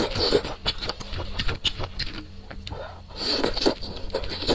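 Close-miked eating sounds: wet chewing and lip smacking with many small clicks. About three seconds in comes a longer, hissy slurp as a strip of food from spicy noodle soup is drawn in from chopsticks.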